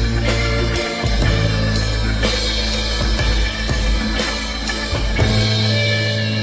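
Rock music with a steady drum beat of about two strokes a second, guitar and bass; the deep bass drops out near the end.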